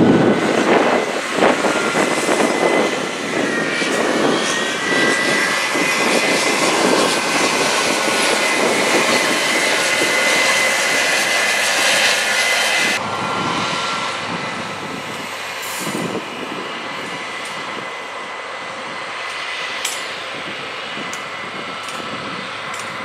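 Combine harvester running while harvesting corn: a steady engine drone with a high whine over it. About halfway through the sound drops suddenly to a quieter level, with a couple of sharp clicks later.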